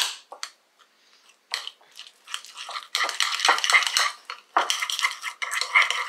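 A metal utensil clinking and scraping against a bowl, stirring milk and butter into thick parsnip purée. A sharp click comes right at the start, then scattered ticks, and the scraping becomes nearly continuous from about three seconds in.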